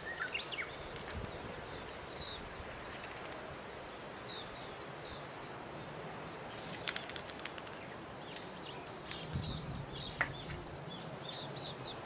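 Small birds chirping intermittently in short, quick calls over a steady background hiss. A few sharp clicks come about seven seconds in and again near the end.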